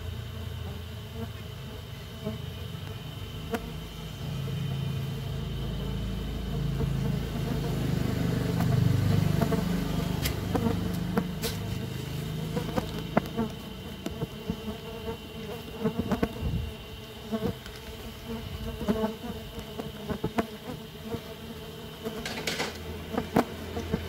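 Buzzing of Trigona biroi stingless bees flying close around their opened hive box, swelling louder for a few seconds before the middle, with scattered sharp clicks.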